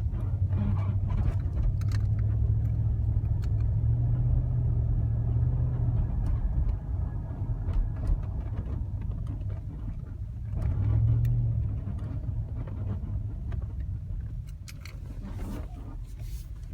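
2006 Range Rover Supercharged in motion: a steady low drone of engine and road noise that swells twice, with short creaks and clicks scattered through it. The creaking is the fault being recorded.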